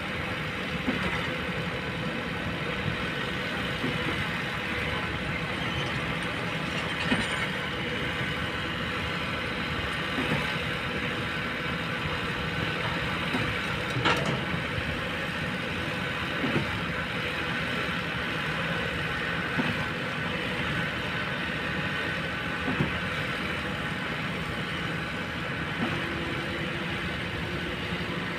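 Kobelco long-boom excavator's diesel engine running steadily, with a short knock or clank every three seconds or so.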